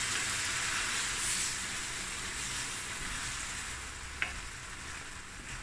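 Steak mince sizzling in a hot stainless-steel pan just after a cup of water has gone in, the sizzle slowly dying down as it is stirred with a wooden spoon. One light tap about four seconds in.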